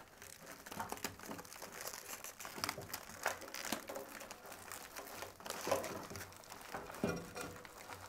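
Microwave-shrunken metallized chip bags crinkling and crackling as hands handle and shift them, in irregular small crackles.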